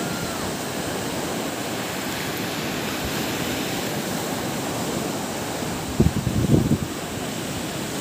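Steady rushing outdoor noise of wind and surf, with brief wind buffeting on the microphone about six seconds in.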